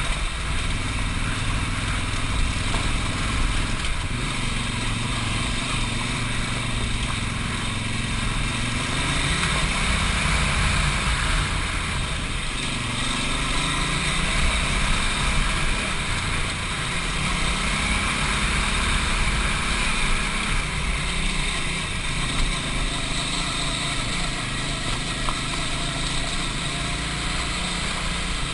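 Large adventure motorcycle's engine running under way on a loose gravel trail, its revs rising and falling several times, over a steady hiss of wind and tyres on stones, heard from on the bike.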